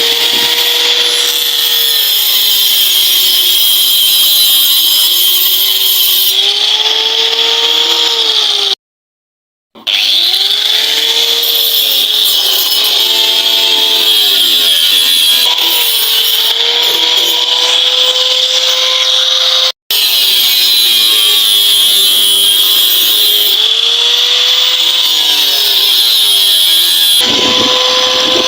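Handheld electric power tool working the sheet metal of a rusted fridge body, its motor pitch dipping and rising as it bites under load over a steady high grinding hiss. It cuts off abruptly twice, once for about a second.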